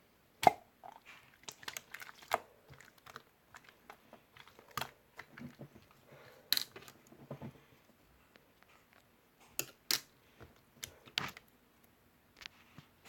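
Marbled slime being squeezed and worked by hand, giving irregular sticky pops and clicks.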